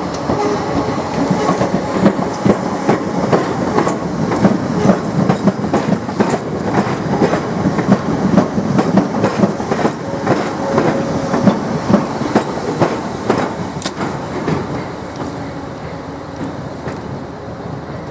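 Electric multiple-unit passenger train passing close by and pulling away, its wheels clattering over the track in an irregular run of clicks. The sound fades over the last few seconds as the train draws away.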